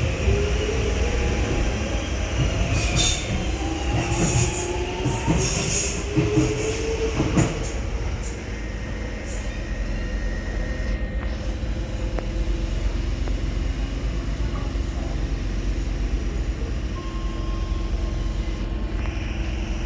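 Electric train running on the track, its motor whine rising in pitch as it gathers speed. Sharp high screeches, typical of wheels squealing on rail, come in the first eight seconds, then it settles to a steady rumble and hum.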